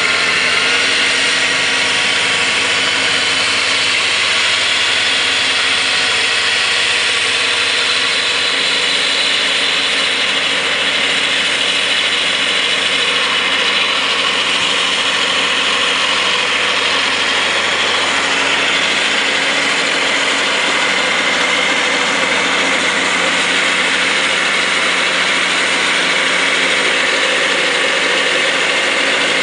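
Kubota B3030 compact tractor's three-cylinder diesel engine running steadily under load, with the whir of its front-mounted snowblower's auger and impeller as it throws deep snow.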